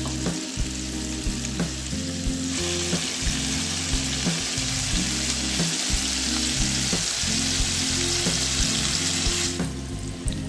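Food sizzling as it fries in hot oil, louder from about two and a half seconds in and stopping shortly before the end, over background music with a steady beat.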